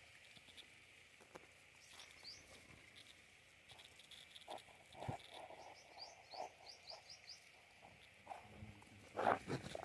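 Small birds chirping outdoors: a single rising chirp about two seconds in, then a quick run of about six rising chirps midway, over a faint steady high hum. Soft rustles and knocks come from a hand handling the plants, with a louder knock near the end.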